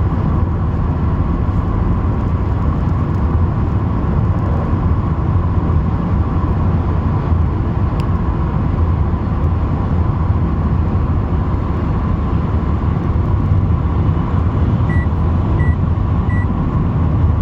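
Steady low rumble of a motor vehicle, even throughout. Near the end come three short high beeps, evenly spaced under a second apart.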